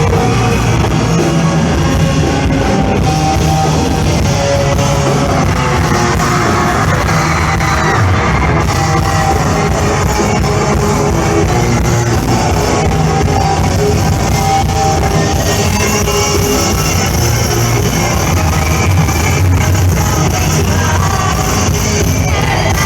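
Live pop-rock band playing loud and steady, with drums, guitar and a lead singer.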